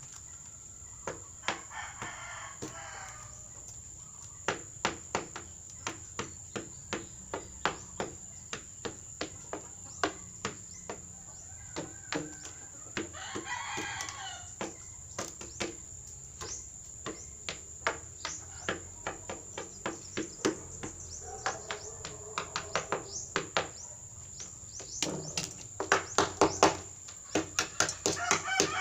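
A rooster pecking at otap biscuits on a hard surface: many sharp taps in uneven runs, broken by a few rooster calls.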